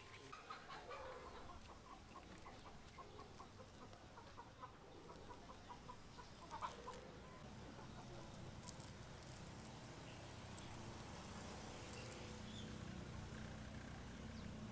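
A chicken clucking faintly, a quick run of short clucks through the first half.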